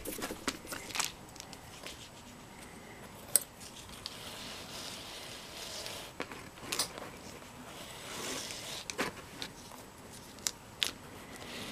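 Lacing cord being drawn by hand through a leather moccasin: a soft rubbing hiss as the cord slides, with scattered small clicks and taps from handling the leather, needles and clips.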